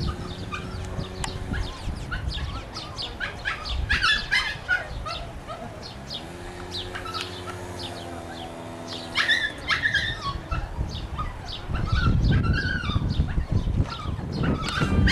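A dog barking and yelping repeatedly in short sharp calls.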